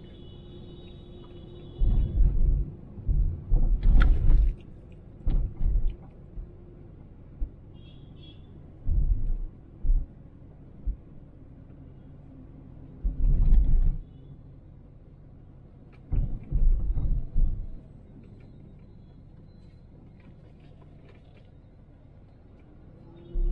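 A car driving, heard from inside the cabin: a steady low road rumble broken by several clusters of loud low thumps and bumps a few seconds apart.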